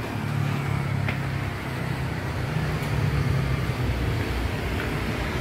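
Motor vehicle traffic: a low, steady engine rumble.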